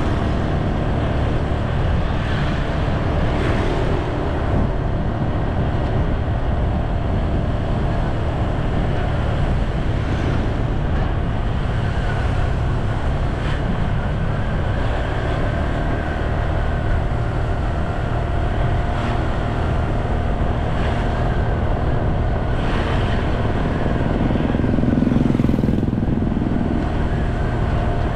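Steady motor-vehicle and road noise with a low wind rumble on the microphone, swelling briefly near the end.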